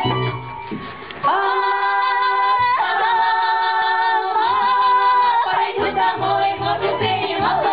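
Women's folk choir singing three long held chords in close harmony, coming in about a second in after a quieter instrumental passage. The instrumental accompaniment and its bass come back in near the end.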